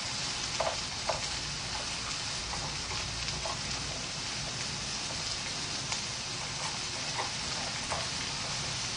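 Pork and enoki mushrooms sizzling steadily in a frying pan, with short ticks now and then as the pieces are turned with wooden chopsticks or fat pops.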